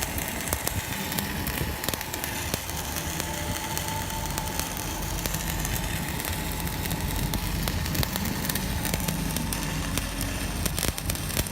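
Stick-welding arc from a ZX7-200 inverter welder, crackling and sizzling steadily with many sharp pops.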